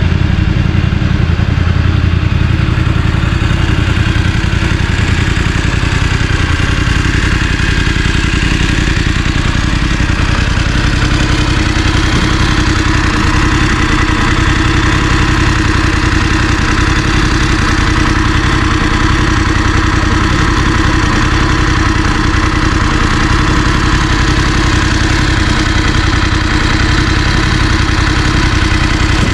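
Voge DS900X's parallel-twin engine idling steadily.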